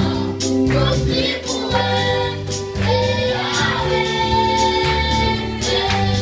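Women and a child singing a gospel song into microphones, with a Casio electronic keyboard accompanying them and the voices amplified.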